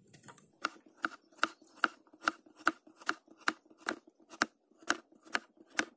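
Kitchen knife slicing a red onion on a plastic cutting board: a steady run of short, sharp knocks, about two and a half a second, beginning about half a second in.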